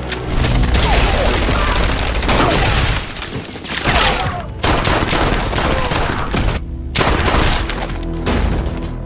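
Film gunfight soundtrack: heavy, rapid gunfire and impacts with a music score beneath.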